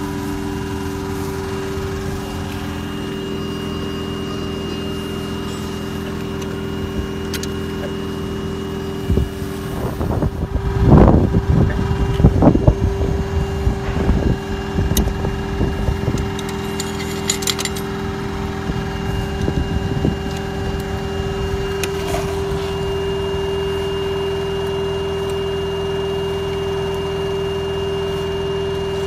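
Electric blower fan on a 5-inch gauge live steam locomotive's chimney running with a steady hum, drawing the fire. About nine seconds in, several seconds of irregular clattering as anthracite beans go into the firebox.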